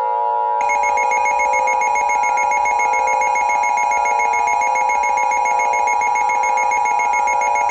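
Emergency Alert System attention signal: a steady two-tone alarm near 850 and 960 Hz, held unchanged, announcing a new emergency bulletin.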